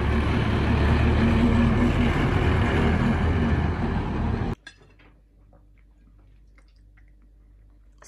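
Tractor engine running as the tractor drives past pulling a trailer: a loud, steady low rumble. It cuts off abruptly a little past halfway, leaving a quiet room with a few faint clinks of cutlery.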